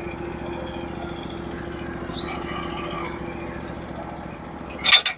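Norwood HD36v2 portable bandsaw mill running with a steady engine drone, then a sharp metallic clank near the end.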